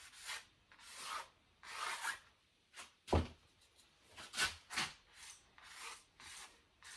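Paint being worked onto a canvas in about a dozen short rubbing strokes at an uneven pace, with one harder knock about three seconds in.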